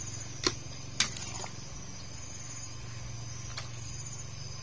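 Metal ladle clinking against the side of a metal cooking pot while stirring: two sharp clinks about half a second apart near the start and a fainter one later. Under them runs a steady high insect trill and a low hum.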